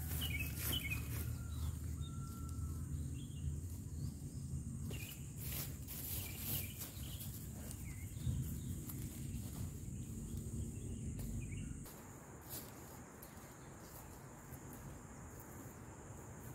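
Forest ambience: a steady high insect drone and scattered short bird chirps, over a low rumble and rustling that drop away suddenly about twelve seconds in.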